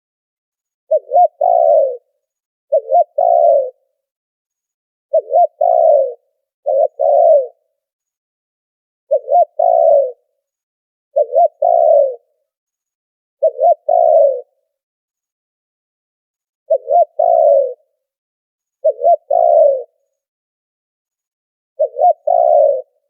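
Spotted dove cooing. About ten phrases come at roughly two-second intervals, each two quick short notes then a longer, falling coo. The background has been filtered out to dead silence between phrases.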